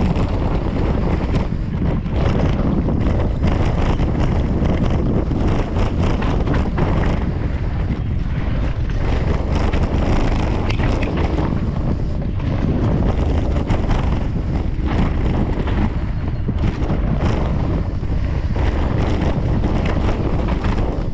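Wind buffeting the microphone of a mountain bike's handlebar camera on a fast descent, with the knobby tyres crunching over loose gravel and stones and the bike rattling on the rough trail.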